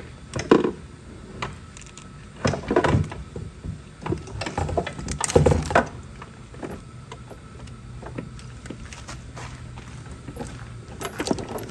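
Handling noise: jacket fabric rustling and brushing close to the microphone, with scattered knocks and clunks from hands working in a snowmobile's engine bay, in irregular bursts.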